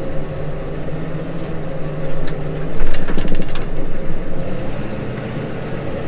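Case Maxxum 150 tractor's diesel engine running steadily, heard inside the cab, with a burst of rattling knocks about halfway through as the tractor and raised plough go over the bumpy, rutted headland.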